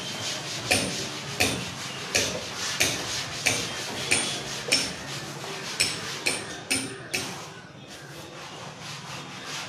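A cloth wiping chalk off a blackboard: about a dozen quick swipes, one every half to two-thirds of a second, each with a brush and slap against the board. The swipes stop about seven seconds in.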